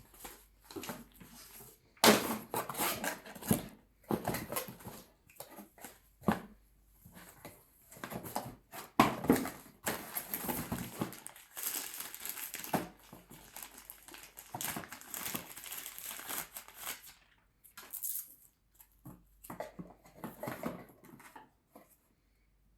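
Irregular crinkling, rustling and knocking of things being handled, coming in uneven bursts with short gaps.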